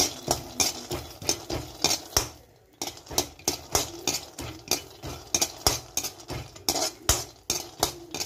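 Peanuts being stirred while roasting in a kadhai: a spatula scraping and clinking against the pan at about three strokes a second, with a brief pause about two seconds in.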